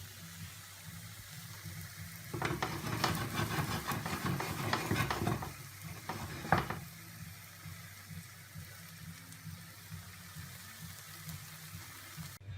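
Kitchen utensil scraping and clicking against a dish for about three seconds, then one sharp knock, over a steady low hum.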